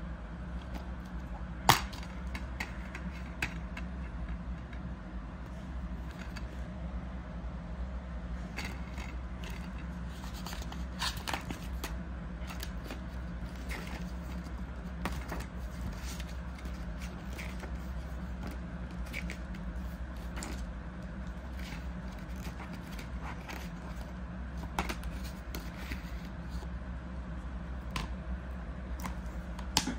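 Plastic DVD case being handled: scattered light clicks and scrapes as it is turned over, opened and its paper insert handled, with one sharp click about two seconds in.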